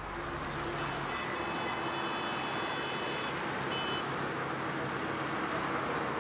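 Road traffic: a steady wash of noise from passing cars and motor scooters. A high, thin tone sounds for about two seconds starting a second in, and again briefly around the middle.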